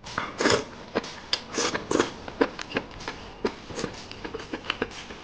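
Close-up eating sounds: a man chewing crisp stir-fried bamboo shoots with rice, a quick string of short crunches and wet mouth clicks.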